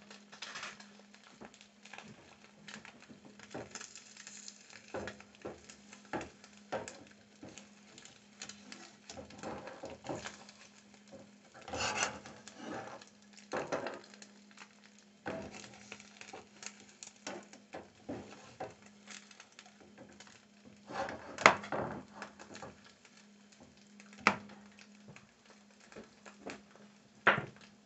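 A metal utensil scraping and knocking against a frying pan on the stove in irregular strokes, with louder clatters about twelve and twenty-one seconds in. A steady low hum runs underneath.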